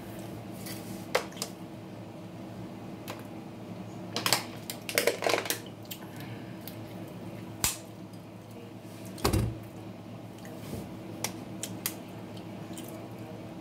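Eating at a table with a full mouth: soft chewing and mouth noises, a plastic water bottle handled, and scattered small clicks and knocks, with a dull thump about nine seconds in, over a steady low hum.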